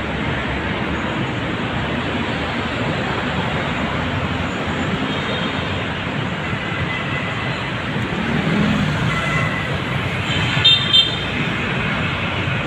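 Steady roadside city traffic: passing cars and trucks. Near the end comes a short horn toot, two quick blasts.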